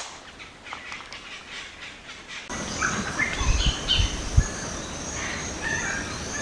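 Wild birds chirping and calling, many short high calls starting about two and a half seconds in, with a few low thumps around the middle.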